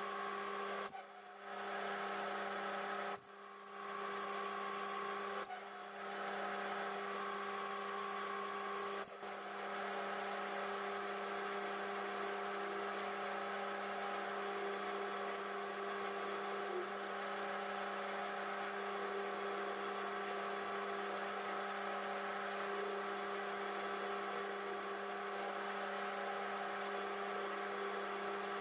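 Metal lathe running steadily while a carbide-insert tool turns down the outside diameter of a steel bar: a steady hum and whine from the motor and gearing, with the cut in the steel. The sound dips briefly four times in the first nine seconds, then runs on unchanged.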